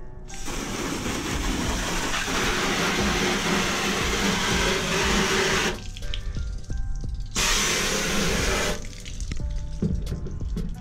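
Water jetting from a garden hose's pistol-grip spray nozzle onto a truck's body and tyre, a steady hiss that stops about six seconds in and comes back in a shorter burst a little later.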